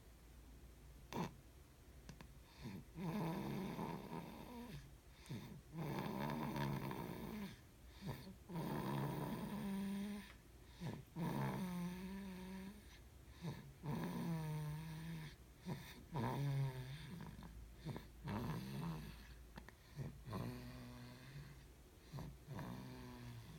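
Repeated snoring: about ten snores a couple of seconds apart, each with a wavering pitch, growing fainter toward the end.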